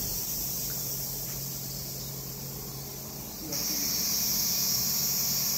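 Steady high-pitched insect chorus that gets suddenly louder about three and a half seconds in, over a low steady hum.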